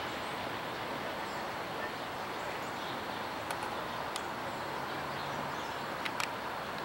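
Steady outdoor rush of background noise with no clear tone. A few short faint clicks come a little past halfway and again near the end.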